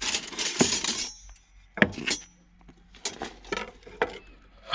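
Kitchen utensils clinking and clattering while being rummaged out of a storage bin, with rustling at first, then a series of short knocks and clinks as a knife and a wooden spoon are set down on a worktop. The loudest knock comes right at the end.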